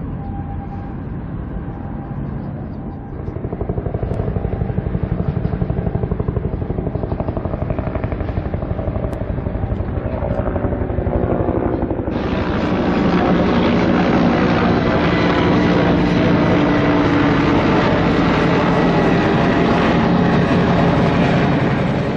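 Marine diesel engines throbbing with a low, steady beat. About twelve seconds in, the sound cuts to a louder, fuller engine run from a tugboat pushing against the reefer ship's hull to berth it.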